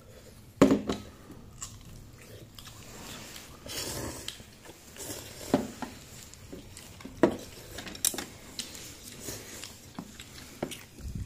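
A man slurping and chewing glass noodles from a porcelain bowl, with short clicks of chopsticks and bowl now and then; the loudest click comes about half a second in.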